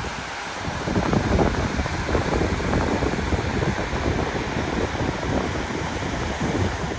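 Wind buffeting the microphone in gusts, a rough rumbling noise that picks up about a second in, over the rush of a fast-flowing river.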